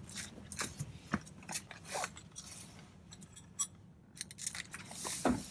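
Light metallic clicks and jingles of a key ring being handled, with scuffing footsteps and a dull thump near the end.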